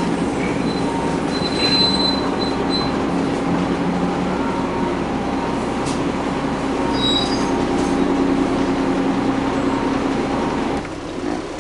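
Interior running noise of a 1992 Flxible Metro transit bus under way: the Cummins L10 diesel engine and Voith automatic transmission drone steadily under road rumble and cabin rattle, with a few brief high squeals. The noise drops near the end.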